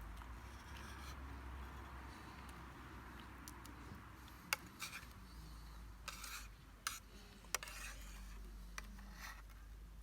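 A few light clicks and scrapes of eating utensils against a pot or dish during a meal, over a faint steady hiss.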